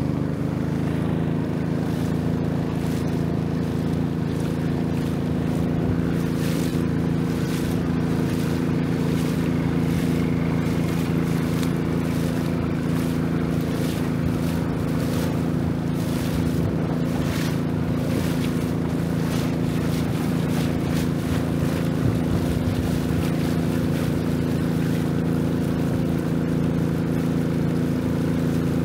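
Long-tail boat's engine running steadily under way, one even droning note, with short rushing noises now and then through the middle.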